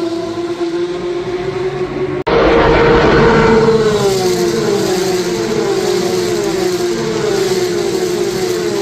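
Racing car engine running at high revs; about two seconds in the sound cuts abruptly to a louder engine whose pitch drops, then rises and falls repeatedly.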